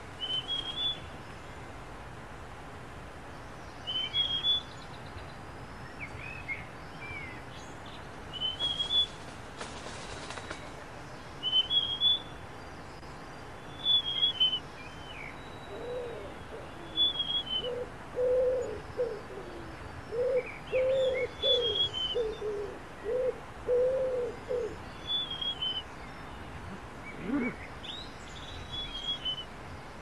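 Birdsong: a short, high chirped phrase repeated about every two seconds. From about halfway a run of low hooting notes joins in for several seconds.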